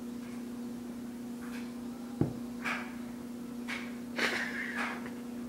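A person with a mouthful of dry cinnamon breathing out in several short, forced puffs through mouth and nose, holding back a cough, against a steady low hum. A single sharp knock about two seconds in, likely the spoon being set down on the counter.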